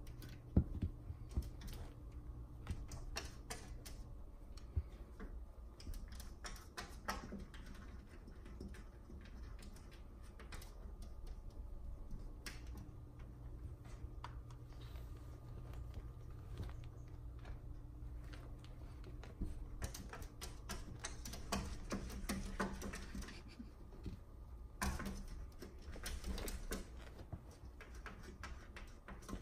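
Cat claws tapping and scratching against window glass: irregular sharp clicks and taps that come thicker in the last third, over a faint steady low hum.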